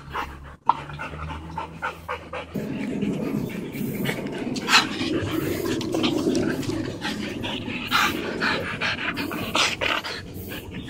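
Alaskan huskies panting close by, with short scuffing clicks mixed in.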